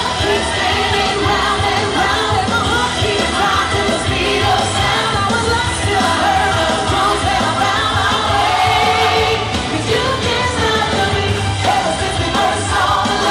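Pop song with a lead vocal played loud through a hall's loudspeakers as dance music, steady with no break.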